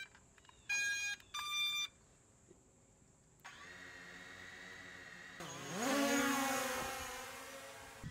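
Two short electronic beeps, then a DJI Phantom 3 quadcopter's motors start at idle with a steady hum. About two seconds later the motors spin up with a rising whine and propeller wash as it lifts off, and the sound fades as it flies away.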